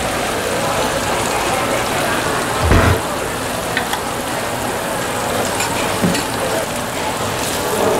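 Beaten egg sizzling in butter on a flat-top steel griddle, a steady crackling hiss. A short dull thump sounds a little under three seconds in.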